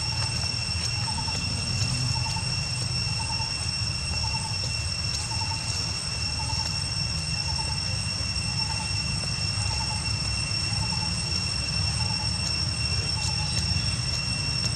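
Outdoor ambience: a steady high-pitched whine over a low rumble, with a short chirp repeating about once a second.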